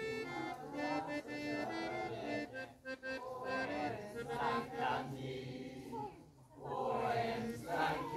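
Accordion playing a folk dance tune in steady held notes, joined about halfway through by a group of people singing along.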